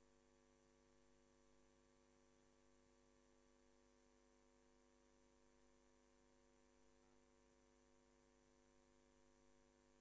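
Near silence after the music stops, with only a faint, steady electrical hum.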